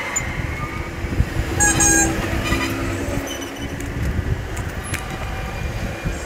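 Motor traffic noise: a steady low rumble of passing vehicles, with a short high-pitched horn-like toot about two seconds in.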